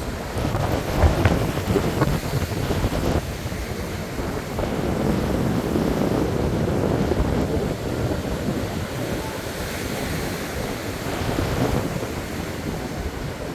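Atlantic surf breaking and washing, with gusty sea wind buffeting the microphone in an uneven low rumble.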